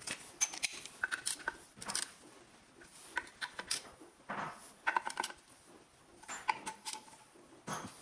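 Metal tools and engine parts clinking and clattering against each other in irregular short knocks, some with a brief ringing tone.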